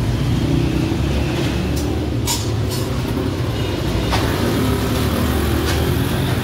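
Steady low rumble of street traffic, with a few sharp clicks of a knife touching the steel griddle as a kidney is trimmed.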